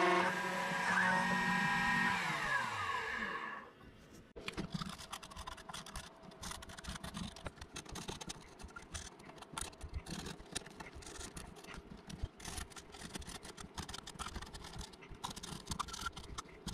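Genmitsu 4030 CNC router's spindle and stepper motors running as the end mill engraves wood: a steady whine of several tones that slides down in pitch about three seconds in and stops. Then a felt-tip marker scratching in short strokes on wood as the engraved letters are inked in.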